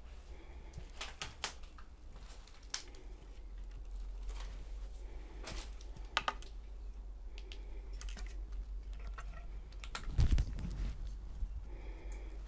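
Scattered light clicks, taps and creaks from someone moving through a derelict wooden cabin, over a steady low hum, with a dull thump about ten seconds in.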